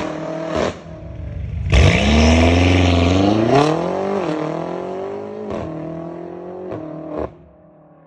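BMW M8 Competition's twin-turbo V8 launching hard and pulling away, its pitch climbing through several quick upshifts, each marked by a brief drop. It fades as the car drives off. A brief burst of engine sound at the very start is cut off under a second in.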